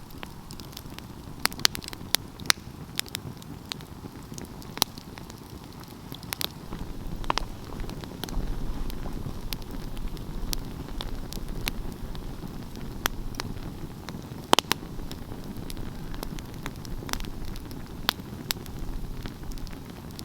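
Wood fire crackling: irregular sharp pops and snaps over a low, steady rumble of burning flames. The rumble grows a little louder about eight seconds in, and one pop a little after the middle is louder than the rest.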